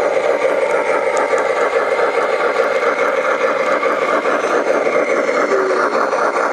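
G scale model Union Pacific Challenger steam locomotive running past under load with a long freight train: a steady, rapid mechanical rattle and whir of its drive and wheels on the track.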